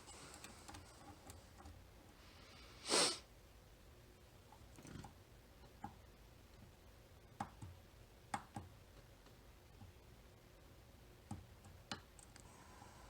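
Faint, scattered clicks and ticks of lock-picking tools working the pins of a Mul-T-Lock Interactive cam lock, a few at a time, mostly in the second half. About three seconds in there is one louder, short rush of noise.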